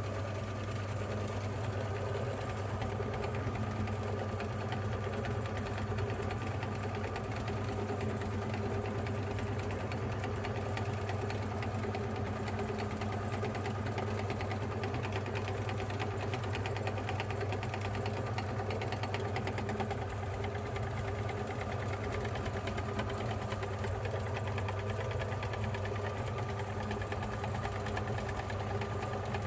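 Electric meat grinder motor running steadily with an even, low hum.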